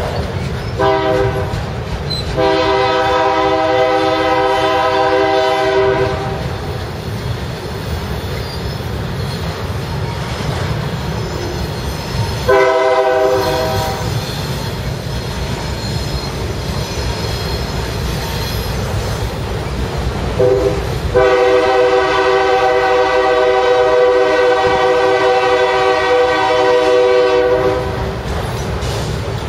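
Freight train of autorack cars rolling past with a steady low rumble and wheel clatter. Over it a train horn sounds several times: short blasts and two long blasts of several seconds.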